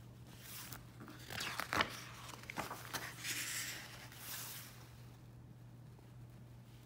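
A glossy book page being turned and pressed flat by hand: a run of paper rustles and crinkles with a few sharp snaps, dying away after about four and a half seconds.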